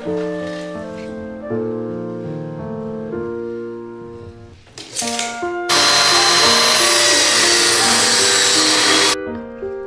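Table saw cutting a strip of plywood: a loud, steady rushing noise with a faint high whine for about three and a half seconds, starting just past halfway and stopping abruptly. Background music with piano and woodwinds plays throughout.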